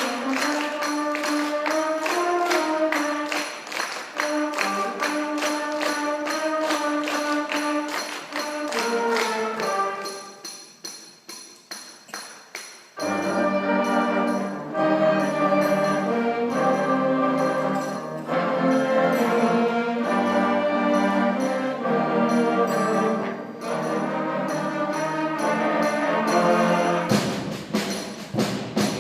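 Middle school concert band playing: wind and brass melody over a steady percussion tick. Around ten seconds in the music thins out and grows quieter, then at about thirteen seconds the full band comes back in louder, with low brass underneath.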